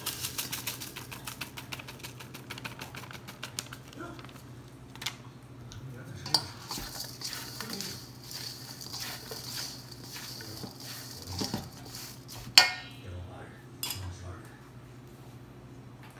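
Larb seasoning shaken from a plastic packet with quick crinkling, then a silicone spatula stirring minced beef in a stainless steel mixing bowl, scraping and knocking against the metal, with one sharp ringing clank about twelve seconds in.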